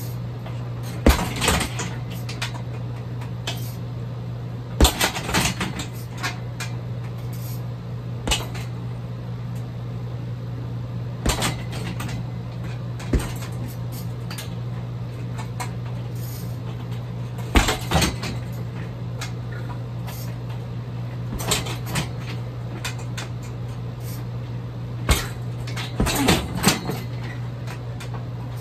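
Punches landing on a hanging heavy bag: sharp thuds every few seconds at an uneven pace, some in quick pairs. A steady low hum runs underneath.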